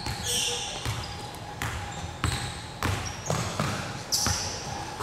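Basketball bouncing on an indoor court, a run of sharp bounces roughly half a second apart in the middle stretch, with brief high squeaks near the start and again about four seconds in and voices in the background.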